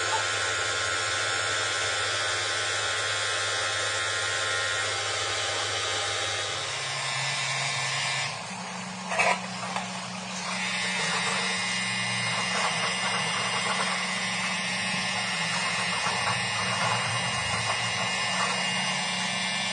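Straight die grinder with a polishing wheel running steadily against a chromed hydraulic cylinder rod as the rod is polished. Its pitch shifts about seven seconds in, and around nine seconds it briefly drops away with a short sharp noise.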